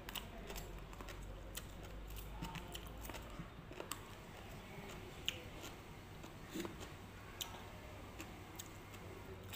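Faint eating sounds: a plastic fork clicking and scraping against a clear plastic bowl of green papaya salad, with quiet chewing between scattered clicks.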